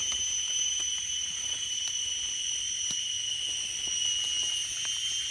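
Steady, high-pitched drone of forest insects, with a few faint clicks of hands working in the leaf litter.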